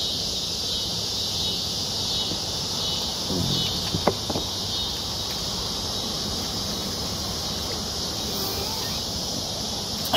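A steady, high-pitched chorus of insects droning without a break. A few sharp clicks come through around four seconds in.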